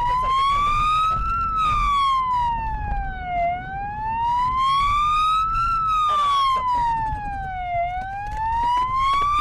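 Police car siren on the wail setting, its pitch sliding slowly up and down in a cycle about every four seconds, over the low rumble of the car driving.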